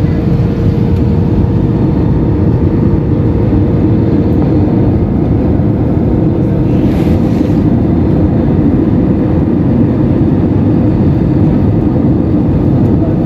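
Steady rush of engine and airflow noise inside an airliner cabin in flight, with a faint steady hum that drops away about seven seconds in.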